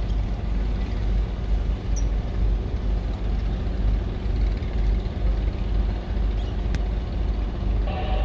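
A boat's diesel engine running steadily at low revs: an even low rumble.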